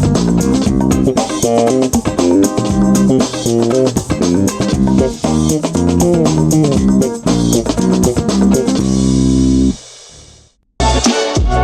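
A music track with a prominent bass guitar, guitar and drums plays steadily. About ten seconds in it cuts out, and after a short silent gap a different track starts.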